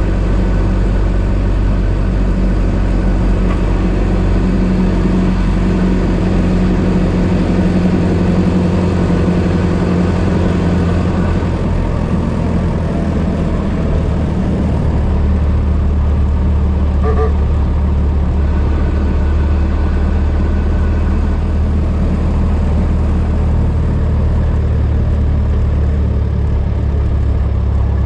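1926 Ford Model T's four-cylinder engine running steadily while the car is driven; about halfway through, its note drops to a lower, deeper pitch and holds there.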